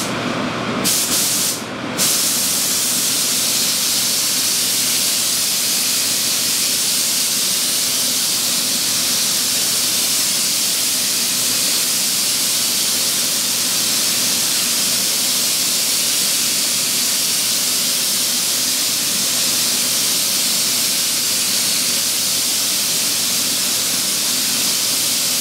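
Compressed-air paint spray gun spraying epoxy primer: two short trigger bursts, then a loud, steady hiss of atomising air held for over twenty seconds, with a steady low hum underneath.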